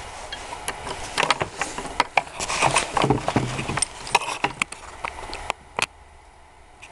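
Handling noise: rustling and knocking as the camera is picked up and turned, then a few scattered light clicks.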